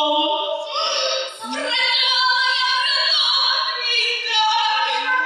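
A song sung in high voices, with long held notes gliding from pitch to pitch.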